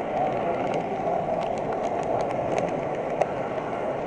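A model train running along its track, heard from a camera riding on the train: a steady rolling rumble of the wheels with scattered light clicks.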